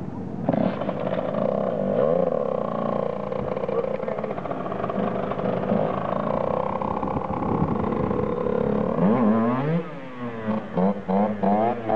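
Dirt bike engine running and revving under the stunt rider's throttle. From about nine seconds in, the throttle is blipped again and again, the pitch rising and falling quickly, as he holds a wheelie.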